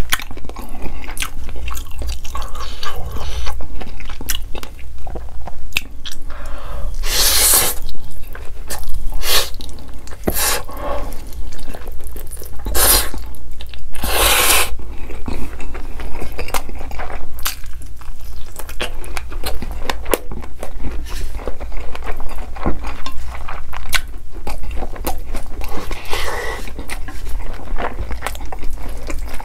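Close-miked eating of chewy instant noodles: steady wet chewing and mouth smacks, with several loud slurps of noodles between about seven and fifteen seconds in and another near the end.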